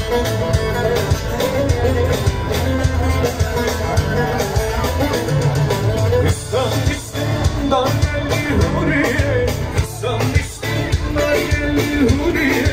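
A small live band playing upbeat dance music, with guitar and a singing voice over sustained bass notes.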